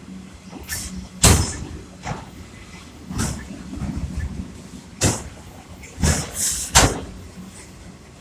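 Freight train cars rolling past, with irregular loud clanks and bangs from the cars every second or two, the loudest about a second in and near seven seconds.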